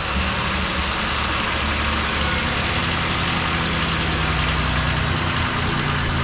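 Buick Rendezvous V6 idling steadily just after starting, with a new EGR valve fitted. It runs smoothly, without the earlier misfire.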